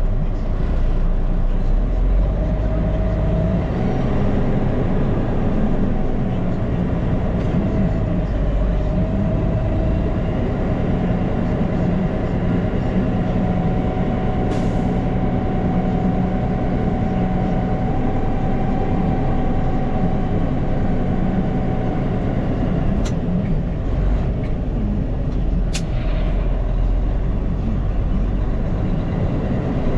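Dump truck engine running under way, heard from inside the cab, with a steady whine over it. A few sharp clicks come through about halfway and again near the end.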